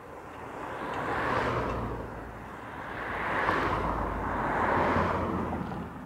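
Vehicles passing on a road one after another: three swells of tyre and engine noise that rise and fade, peaking about a second and a half in, in the middle, and near the end.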